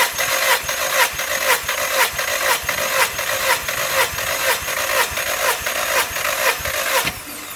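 Starter motor cranking a VW 1.6-litre CFNA four-cylinder engine for a compression test on the third cylinder, pulsing evenly about twice a second, then stopping suddenly near the end. The cylinder builds 13 kg/cm² of compression.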